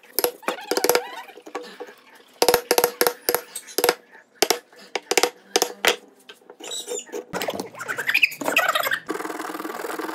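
Hand-tool work on a wooden column blank: clusters of sharp wooden knocks and taps, with squeaky gliding sounds about seven seconds in and a steady noise from about nine seconds in.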